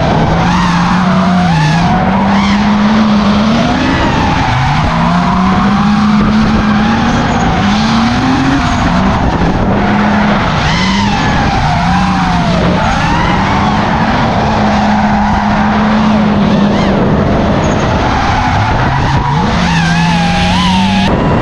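Drift car engines revving hard, the pitch climbing and dropping again every second or two as the cars slide, over continuous tyre screech.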